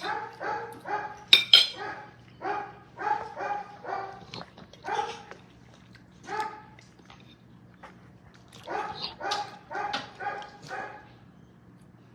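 A dog barking repeatedly in quick runs of short, high-pitched yaps, with pauses between the runs, stopping about a second before the end.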